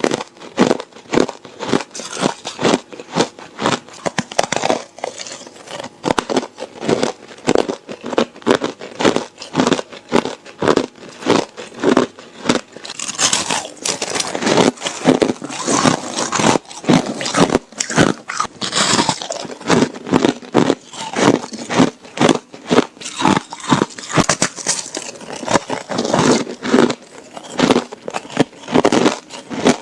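A person biting and chewing ice, crunching it between the teeth in a steady run of crunches a few times a second. The crunching grows thicker and noisier for a few seconds around the middle.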